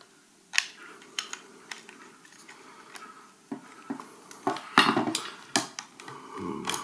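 Scattered small plastic clicks and knocks of a GoPro thumb screw being pushed through the camera mount's fingers and turned. The clicks cluster and get louder about halfway through, with a short rustle of handling near the end.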